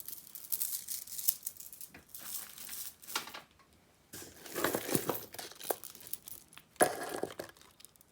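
Packaging crinkling and rustling in irregular short bursts as jewelry is handled and unwrapped.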